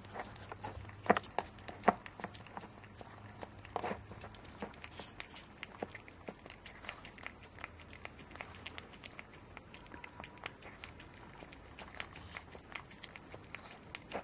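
A long-haired chihuahua licking and eating soft dog cake from a plastic dish: quick, irregular wet tongue clicks and smacks, with a few sharper clicks about one and two seconds in.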